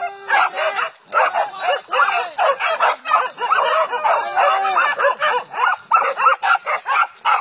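A pack of hunting dogs barking and yelping over one another, many calls a second, as they bay and attack a cornered wild boar.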